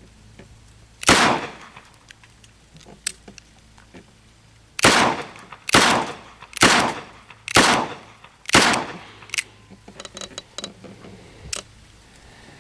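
Armscor Model 200 .38 Special revolver with a 4-inch barrel firing six shots of 158-grain ammunition: one shot about a second in, then after a pause five more in steady succession about a second apart.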